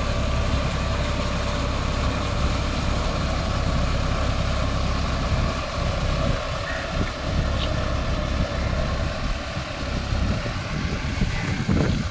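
John Deere 5050D tractor's three-cylinder diesel engine running steadily under load, pulling a rotavator through wet paddy mud and drawing away. From about halfway, wind rumbles on the microphone.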